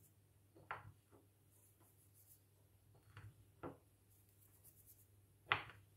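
A few soft, brief handling sounds as fingers take pinches of ground pepper from a small glass bowl and sprinkle it over raw chicken pieces, the loudest near the end, over a near-silent room.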